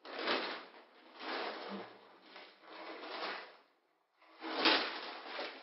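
Crinkling and rustling of plastic snack packets and food wrapping being grabbed and handled, in several separate bursts, the loudest about four and a half seconds in.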